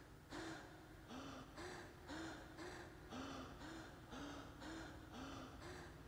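Faint, regular gasping breaths, about two a second, each with a brief pitched catch that rises and falls.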